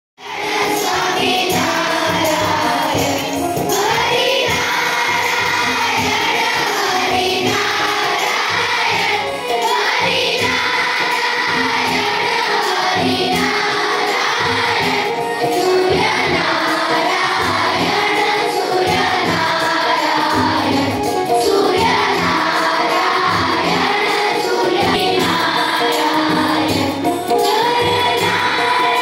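A group of children singing a song together in a school assembly, with a hand drum and a held keyboard accompaniment.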